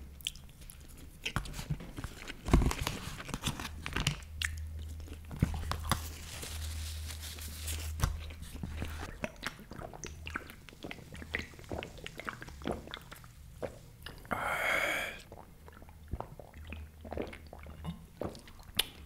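Close-miked eating: chewing and crunching with many short clicks, as from a plastic fork and containers. Later come swallows of soda from a plastic bottle. A low steady hum runs underneath.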